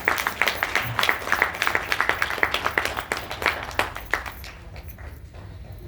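Audience applauding with many hands clapping, thinning out and fading away near the end.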